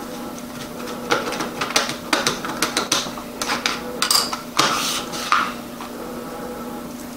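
A run of irregular clicks and clatters as small objects are handled on a tabletop, with a couple of rustling scrapes near the middle, over a steady low hum.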